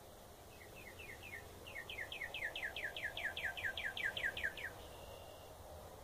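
Unidentified songbird singing one trill of quick down-slurred notes, about five a second. It starts softly with a few spaced notes, then runs on louder and faster for about three seconds before stopping near the end.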